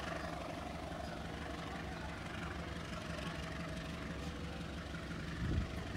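A vehicle engine idling with a steady low hum, swelling briefly near the end.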